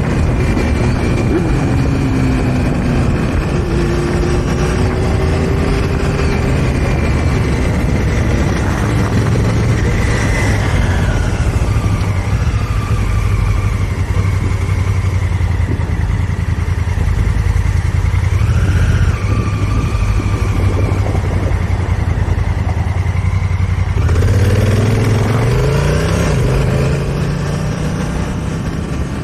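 2018 Honda Africa Twin's 998 cc parallel-twin engine running under way. Its pitch holds fairly steady through most of the stretch, then rises as the bike accelerates about five seconds before the end.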